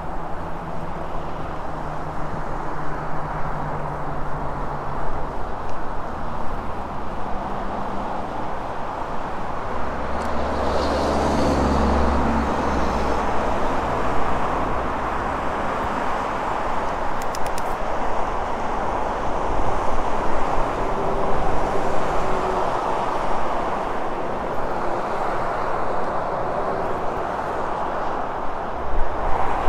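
Steady wind and rolling noise on an action camera's microphone while riding an Eahora AM100 electric mountain bike. About ten seconds in, a deeper rumble swells for a few seconds as a vehicle passes.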